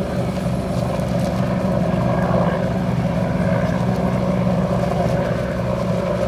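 A vehicle engine running with a steady low drone, over an even hiss of road or wind noise.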